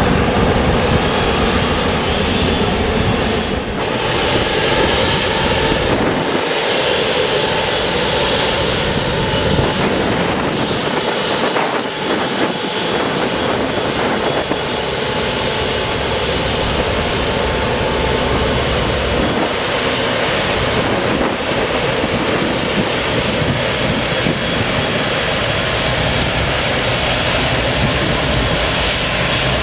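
Airliner engines running loud and steady, a dense rushing noise with a few faint steady tones through it.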